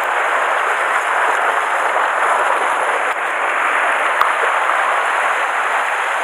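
Sea surf washing and foaming over the rocks close by, a steady loud rush of water. A single sharp click about four seconds in.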